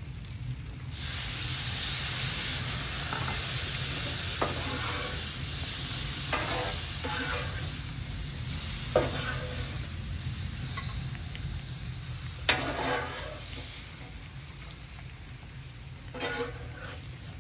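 Honey-soy sauce sizzling hard on a very hot Blackstone steel griddle as it reduces, the sizzle starting suddenly about a second in and dying down near the end. A metal spatula scrapes and knocks on the griddle about five times as the peppers are stirred through the sauce.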